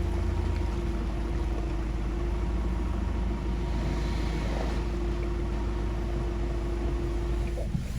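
4WD vehicle's engine running steadily at low revs, a low rumble with a steady hum over it that cuts off shortly before the end.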